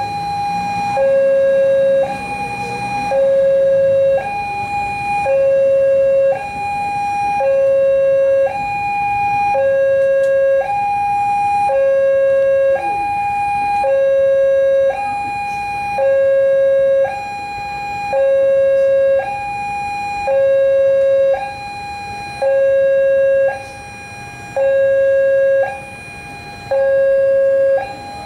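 Railway level-crossing warning alarm sounding its electronic two-tone signal, alternating a higher and a lower tone about a second each, over and over. It is the crossing's warning that a train is approaching and the gates are down.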